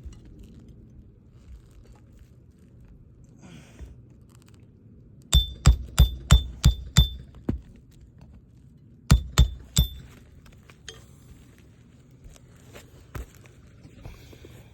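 Hammer driving roofing nails into an asphalt shingle: a quick run of about seven strikes with a short metallic ring, then three more a couple of seconds later.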